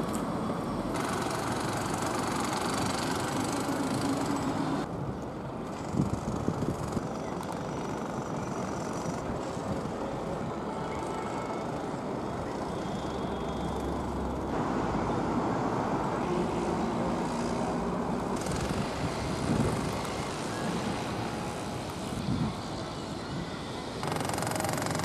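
Steady city traffic noise, a continuous hiss and rumble whose character switches abruptly several times, with a few short low thumps.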